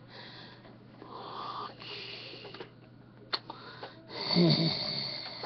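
A man's breathing, with a sharp click a little past three seconds and a short, low, breathy vocal sound about four seconds in.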